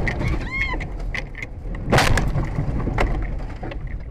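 Vehicle collision: a loud crashing bang about two seconds in, over a heavy low rumble, with a short squeal that rises and falls about half a second in.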